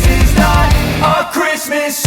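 Loud background music with a steady beat and pitched melody notes; the bass and drums drop out for a moment in the second half.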